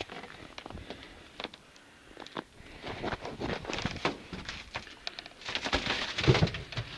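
Rustling and irregular small clicks and knocks of hands handling a freshly landed burbot and fishing tackle. The handling is sparse at first and gets busier from about halfway through.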